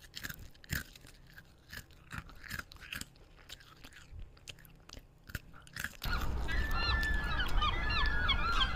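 Crunchy chewing and biting for about six seconds, then a sudden change to a seagull squawking over and over above a steady low noise.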